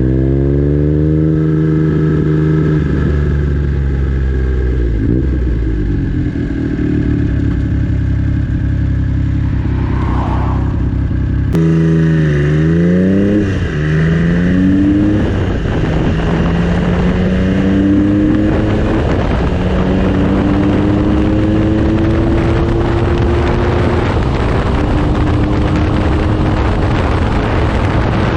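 Triumph Trident T150V three-cylinder engine with a 3-into-1 exhaust, under way and pulling through the gears: the pitch climbs, drops at each upshift, then rises slowly in top gear, with wind noise growing. There is a cut a little before halfway, where the pitch jumps.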